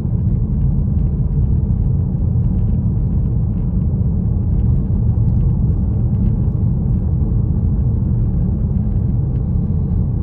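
Steady low road rumble of a car driving, heard from inside the moving car.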